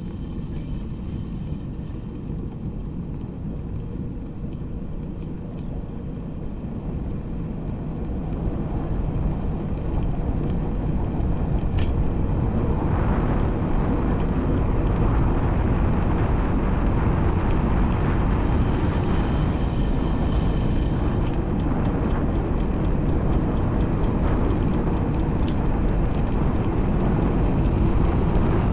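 Wind noise buffeting an action camera's microphone, with a low rolling rumble, while moving along a paved trail. It grows louder about nine seconds in and stays louder, with a few faint clicks.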